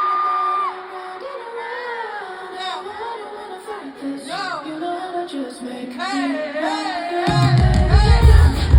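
Live pop concert music: singing over sparse backing, then the bass and drums come in loudly about seven seconds in.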